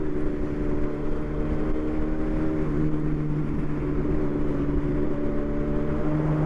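Yamaha R1's inline-four engine running steadily at cruising speed, under a constant wash of wind and road noise.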